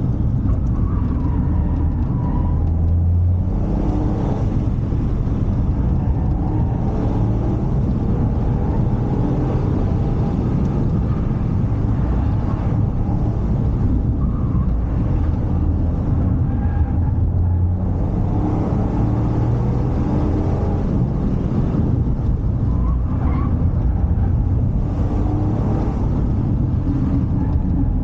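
Toyota GR Yaris's turbocharged 1.6-litre three-cylinder engine pulling under load while driven hard, its note rising and falling through the gears over steady road and tyre noise.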